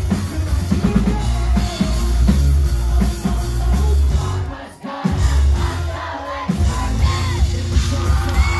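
A live rock band playing loud, with a singer's vocals over heavy drums, bass and guitar. The band cuts out for a moment a little past halfway, then comes back in.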